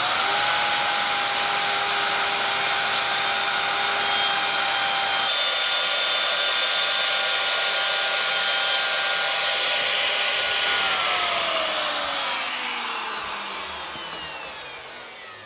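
Bosch 1617EVS router motor comes up to full speed and runs with a steady high whine while plunge-cutting a shallow groove in wood. About eleven seconds in it is switched off and spins down, the whine falling in pitch and fading.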